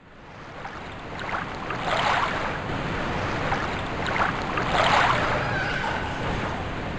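Sea ambience of wind and water washing, fading in at the start and swelling twice, about three seconds apart.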